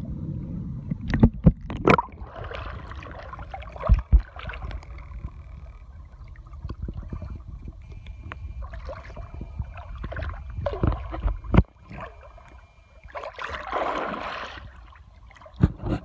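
Water sloshing and gurgling around a phone held at the water's surface, with a low rumble and several sharp knocks. A louder splash comes near the end.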